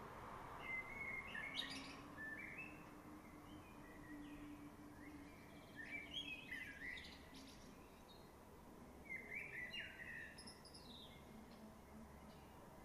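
Eurasian blackbird singing: three separate song phrases a few seconds apart, over a faint steady low hum.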